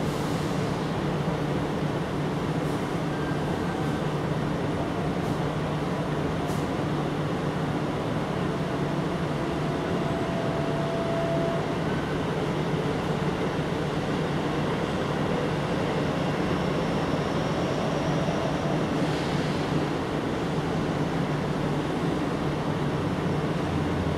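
Steady low hum and rumble of background machinery that does not change, with no meowing or other sound event standing out.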